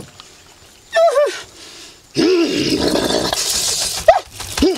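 Short, paired barking cries from a man, then from about two seconds in a loud, continuous shaking of a gourd rattle with growling cries over it. The cries sound animal-like.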